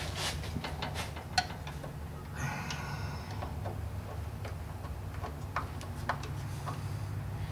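Light, irregular metallic clicks and taps of hand tools working on the engine of a 1973 VW Super Beetle, with a short scraping rattle about two and a half seconds in, over a steady low hum.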